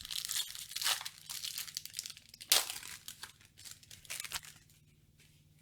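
Yu-Gi-Oh card pack packaging being torn open and crinkled by hand, with one sharp, loud rip about two and a half seconds in; the crinkling stops a little after four seconds.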